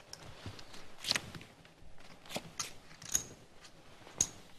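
Scattered sharp clicks of poker chips being handled at the table, about half a dozen over a few seconds, a couple with a brief bright ring.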